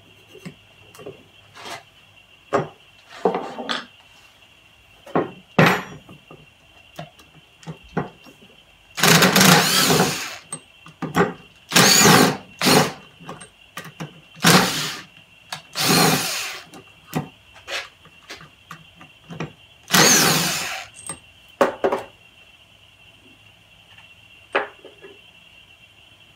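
Cordless drill-driver unscrewing the bolts that hold a valve onto an air-engine cylinder, running in about six short bursts through the middle of the stretch. Small metal clicks and tool handling come before and after the bursts.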